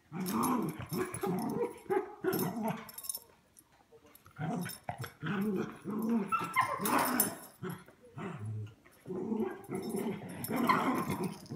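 Two small dogs play-fighting, growling in rough bursts with short pauses between them.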